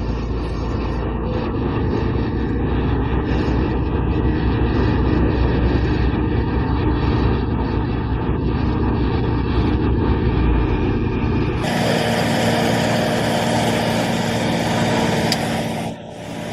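Heavy diesel construction machinery running steadily with a deep rumble. About twelve seconds in it switches abruptly to a louder, hissier machine noise.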